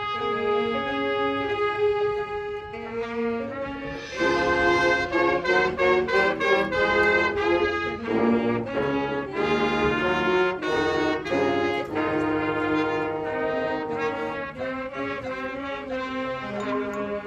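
Marching band brass playing: long held chords at first, then from about four seconds in a louder passage of shorter, quickly moving notes.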